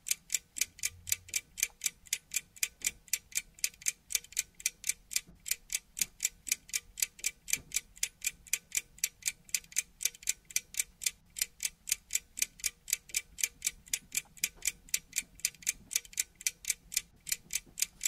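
Clock-like ticking, fast and even, about four sharp ticks a second, marking time passing.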